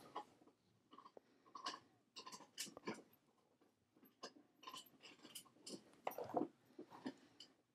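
Faint, irregular small clicks and crackles of hand soldering: a soldering iron tacking header pins on a small drone circuit board while fingers hold the board, with a slightly louder cluster about six seconds in.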